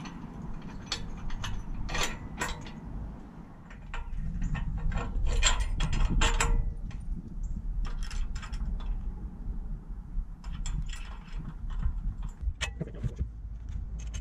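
Aluminum kayak launch frame and its bolts being handled: scattered metallic clicks and clinks as bolts are slid into place and nuts and washers are threaded on by hand.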